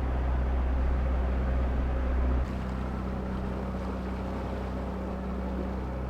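Steady low hum on board an IMOCA 60 racing yacht over a faint hiss. The hum changes abruptly about two and a half seconds in and drops slightly in level.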